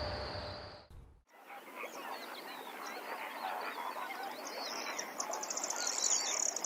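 A flock of birds calling all at once, a dense chatter of many short calls, with a fast high trill joining partway through. It cuts in about a second in, after a steady high insect-like trill stops.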